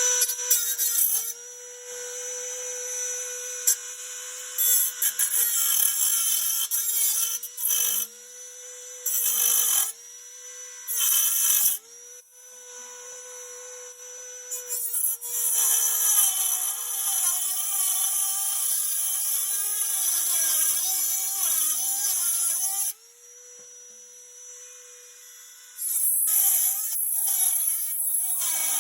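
Small high-speed rotary tool with a cut-off wheel cutting through a rusty metal bracket. It gives a steady high whine that sags in pitch each time the wheel bites, with repeated bursts of hissy grinding. It runs quieter for a few seconds about three-quarters in, then cuts hard again.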